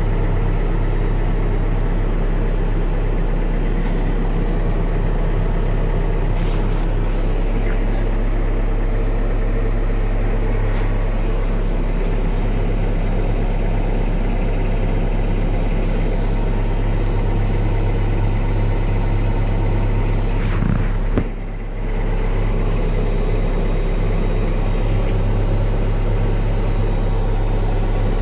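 Diesel engine of a 2005 Cat 430D backhoe loader running at a steady idle, an even low hum. A little past three quarters of the way through, the sound briefly dips for about a second.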